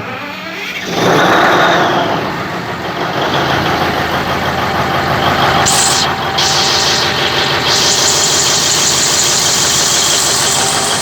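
Cummins 2000 kVA diesel generator set starting for an unloaded warm-up run: the engine catches and rises about a second in, then settles into a steady, loud run.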